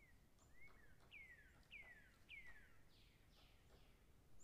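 Near silence with a run of faint falling whistled chirps, about two a second, fading out after three seconds.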